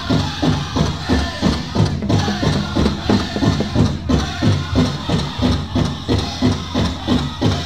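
Powwow drum group playing a fancy shawl dance song: a large hand drum struck in unison by several players in a fast, steady beat, with the singers' voices over it.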